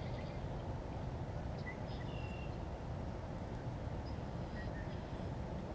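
Outdoor ambience: a steady low rumble of wind on the microphone, with a few short bird chirps scattered through it.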